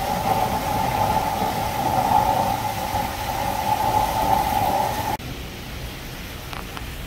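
Steady rushing noise at the koi pond, cutting off abruptly about five seconds in. After it comes a quieter hiss with a few faint ticks.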